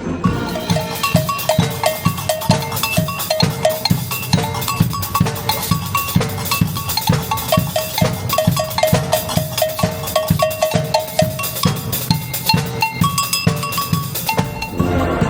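Youth band playing live, a percussion-heavy passage: drum kit and bass drum keep a steady driving beat while the winds play short repeated notes over it.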